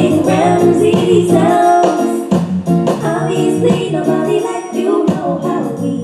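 Reggae dancehall music with a sung vocal over a steady drum beat.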